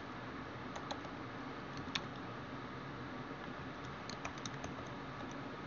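Faint, scattered keystrokes on a computer keyboard, a few clicks at a time with pauses between, over a steady low hiss.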